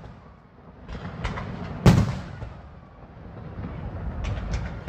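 Fireworks going off: a loud bang about two seconds in, with smaller cracks before it and a quick run of pops near the end, over a low rumble.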